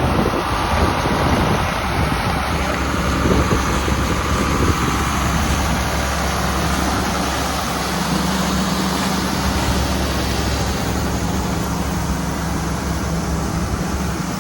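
Diesel engine of harvest machinery running steadily with a low, even hum. Wind buffets the microphone in the first few seconds.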